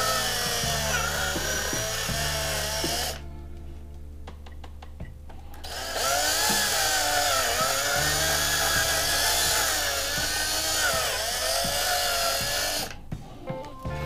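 Electric drill drilling out the rivet that holds a diecast toy truck's baseplate, its whine dipping and recovering in pitch as the bit bites into the metal. It stops for about three seconds a few seconds in, then runs again until just before the end.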